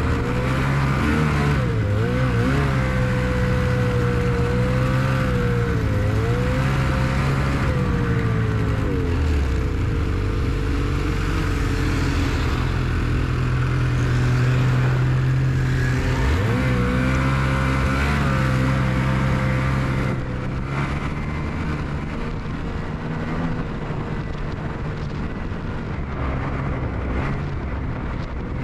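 Ski-Doo Expedition Xtreme snowmobile engine running under way on a trail, its revs rising and falling with the throttle. Other snowmobiles pass the other way around the middle.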